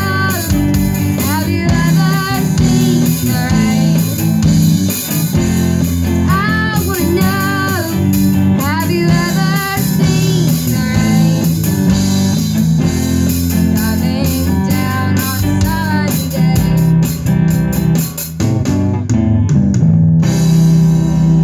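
Live band playing a song: singing over guitar with a drum kit keeping the beat. Near the end the drumming stops, leaving held notes.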